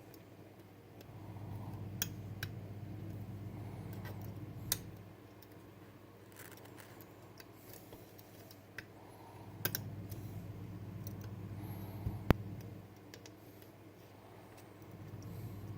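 Small sharp metal clicks and ticks of lock picks working the sliders of a Bellock cam lock, scattered irregularly with one louder click about 12 seconds in. A low hum swells in and fades out in long stretches beneath them.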